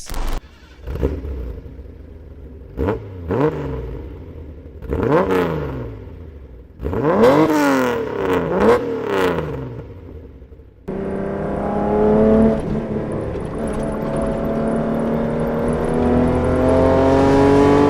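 Nissan L-series inline-six engine revved in a series of quick throttle blips, each rising and falling sharply. About eleven seconds in, a cut brings one long, slowly rising rev as the engine pulls steadily.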